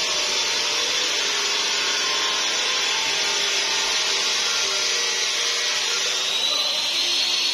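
Steady hissing whir of a power tool running continuously, with a faint high whine that rises slightly near the end.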